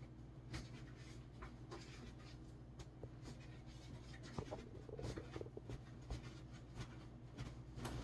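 Faint scratching and rubbing with scattered light clicks, over a steady low electrical hum.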